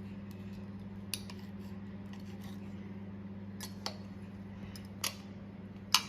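A few sharp metal clicks of a knife against a dish, four in all and the last the loudest, over a steady low electrical hum.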